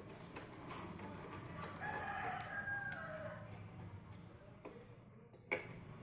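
A rooster crows once, for about a second and a half, over light clicking and a low steady hum. A sharp click or knock comes near the end.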